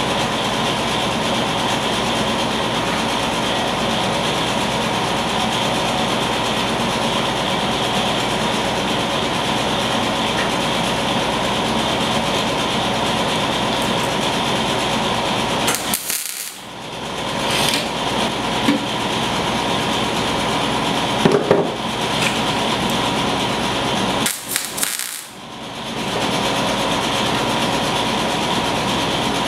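Electric arc welder tack-welding a patch into a rusted steel motorcycle fuel tank, a steady hiss from the arc. It breaks off briefly about halfway through and again near the three-quarter mark, as the welder stops between tacks.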